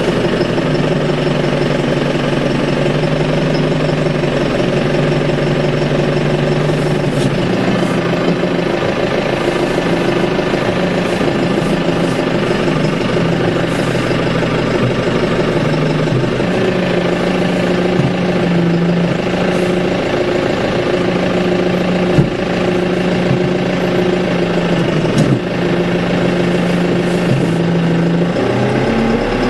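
Tractor engine running steadily, heard from inside the cab, its note changing a few times as it powers a Danuser Hammer hydraulic post driver. Occasional short sharp knocks come from the hammer working a wooden fence post, the loudest about three quarters of the way through.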